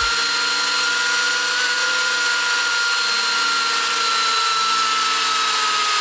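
Small combat robot's drive motors spinning its wheels, with a steady whine that sinks slightly in pitch as the elevon mix percentage on the transmitter is turned down.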